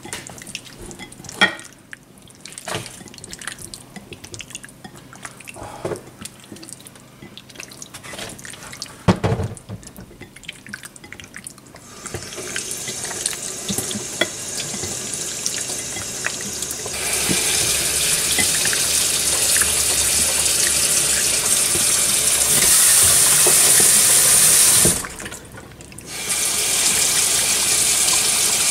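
Sticky, squelching clicks of a hand kneading marinated chicken pieces in a glass bowl. About twelve seconds in, running water from a tap starts up, growing louder, stopping briefly near the end and then running again.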